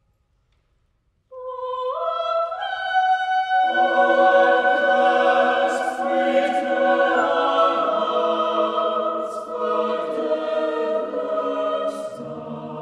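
Mixed chamber choir singing: after about a second of silence, upper voices enter on a held note, and the full choir joins about two seconds later in sustained chords. Deeper voices come in near the end.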